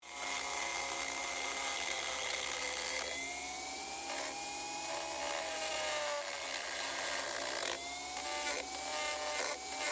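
Chicago Electric rotary tool (Dremel-type) grinding down the drive end of a metal winch handle: a steady high motor whine over a grinding hiss. Its pitch sags from about three seconds in and comes back up near the end.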